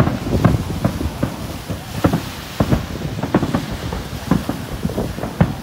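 Japanese Nagaoka fireworks aerial shells bursting in quick succession, about three to four booms a second, overlapping with a continuous low rumble.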